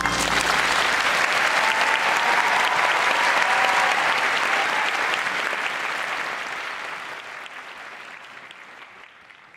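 Audience applauding at the end of a jazz song, fading away over the last few seconds.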